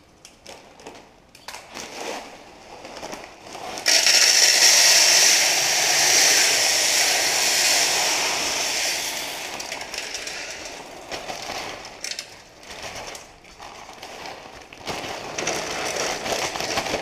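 Filter gravel pouring from a plastic bag through a plastic funnel into a filter tank: a loud, even rushing that starts suddenly about four seconds in and tails off over several seconds. The plastic bag crinkles before the pour and again near the end as the last gravel is shaken out.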